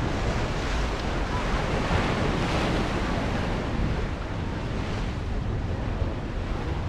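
Ocean surf washing in over the rocks of a cove below the cliff, with wind buffeting the microphone as a low rumble. The wash swells about two to three seconds in.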